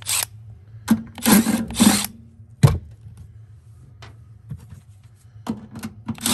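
Milwaukee Fuel cordless driver running in several short bursts on sheet-metal screws, with a longer run near the end. A single sharp click comes about two and a half seconds in.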